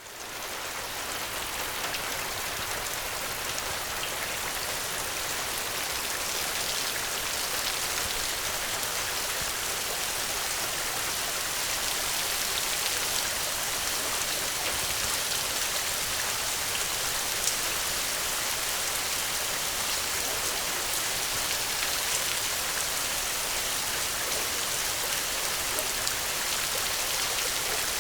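Steady rainfall, an even hiss of many drops with faint individual drop ticks, fading in over the first second.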